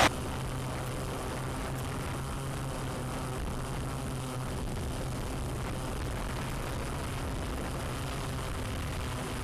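Steady, even hum of a camera drone's propellers: a constant low tone with an airy hiss, unchanging throughout.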